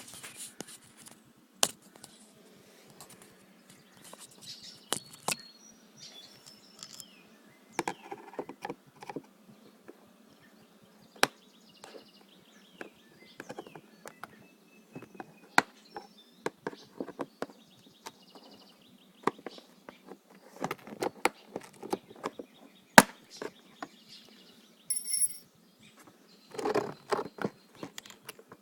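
Scattered sharp clicks and knocks of plastic clips being pried off an air-conditioning evaporator housing, with the loudest snap about 23 seconds in. Birds chirp now and then in the background.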